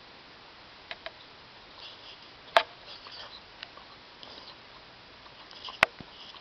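A few short, sharp clicks over a steady hiss. The two loudest come about three seconds apart, with fainter clicks between them.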